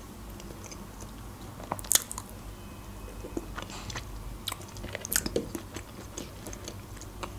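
A person chewing food close to the microphone with the mouth closed, with small wet mouth clicks scattered throughout. A sharper click comes about two seconds in, and a cluster of clicks comes around five seconds in.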